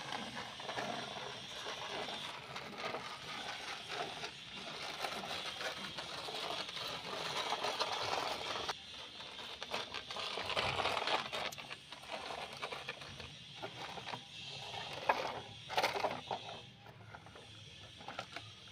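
Plastic toy truck pushed by hand, its plastic wheels scraping and rattling over gritty concrete, with a few sharp knocks later on.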